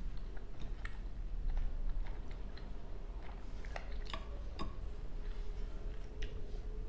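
Someone eating: soft chewing and light clicks and taps of wooden cutlery against a plate, the loudest clicks a little after four seconds in.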